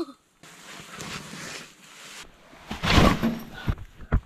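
A match struck to light kindling in a small metal wood stove, followed by about two seconds of steady hiss. A louder clatter comes about three seconds in, and a sharp knock near the end.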